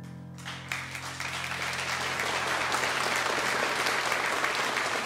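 Audience applause breaking out as the song's last chord dies away. The clapping starts about half a second in, swells within a second or so, then carries on steadily.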